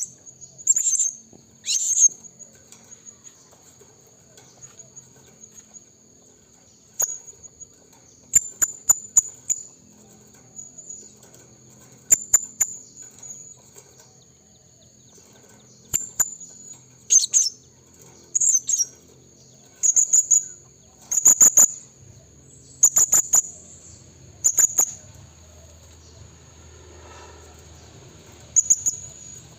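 Blue-crowned hanging parrot (serindit) calling: short, shrill, very high chirps given singly and in quick clusters, with pauses of a few seconds between bouts.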